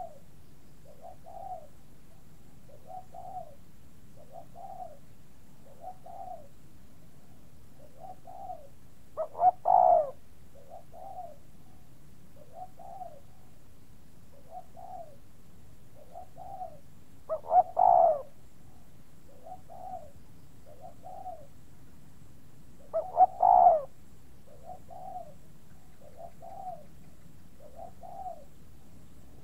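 Pigeons cooing: a soft coo repeated about every second and a half, with three louder, longer coos, each led by a couple of short notes.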